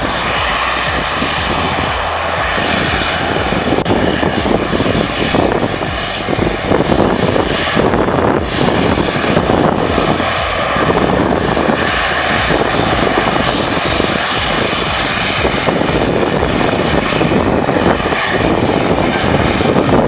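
ATR 72-600 turboprop's two Pratt & Whitney PW127M engines and propellers running as the airliner taxis and turns on the runway: a steady high turbine whine over a dense propeller drone, growing a little louder after about six seconds.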